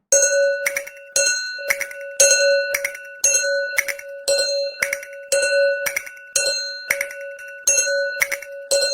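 Japanese level-crossing warning bell (fumikiri alarm) ringing its repeated clang, about two strikes a second, each leaving a ringing tone.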